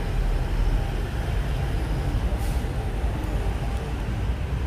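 Steady street traffic: motorbikes and cars running along a city road, a continuous low rumble with no single event standing out.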